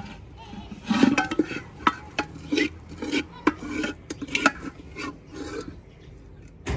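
Metal ladle scraping and clinking against the inside of a metal pot of curry as it is stirred and served onto a steel plate, in a run of irregular scrapes and knocks.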